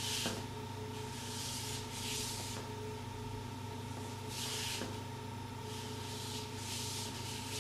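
Dress shoes sliding and scuffing across a stage floor in about six separate slow slides, the sound of feet gliding through an airwalk turn. A steady electrical hum runs underneath.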